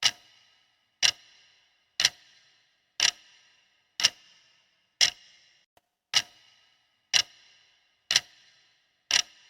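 Countdown-timer clock sound effect ticking about once a second for the answer time, ten ticks in all, each with a short ringing tail.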